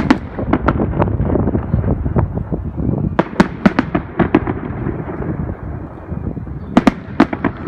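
Aerial fireworks display: a continuous low rumble of shell bursts with many sharp bangs and crackles, coming in rapid clusters about three seconds in and again near the end.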